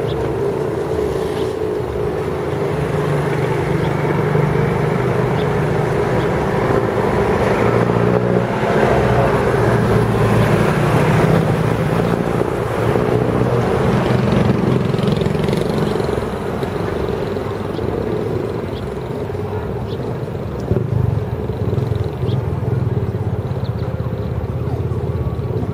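Rolls-Royce Trent 700 jet engines of an Airbus A330-300 rumbling during its landing roll. The noise swells about eight seconds in and eases after about sixteen seconds.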